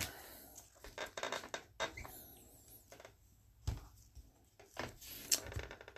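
A stack of baseball trading cards being handled in gloved hands and squared on a table mat: faint scattered taps, slides and rustles of card edges.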